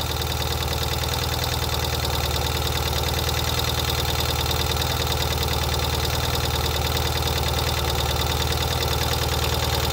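2023 Ural sidecar motorcycle's air-cooled boxer twin idling steadily as it warms up after a cold start.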